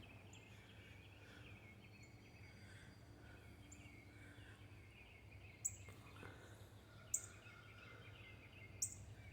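Faint, distant birds chirping and twittering over a low steady outdoor background. Three short sharp clicks come in the second half.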